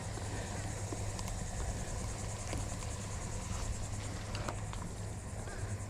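Insects trilling outdoors, a steady, fast-pulsing high-pitched chorus, over a steady low hum with a few faint ticks.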